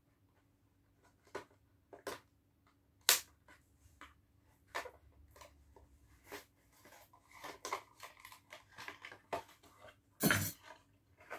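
Hot Wheels blister pack being opened by hand: irregular crinkling and tearing of the plastic blister and cardboard backing card, with sharp snaps about three seconds in and again near the end.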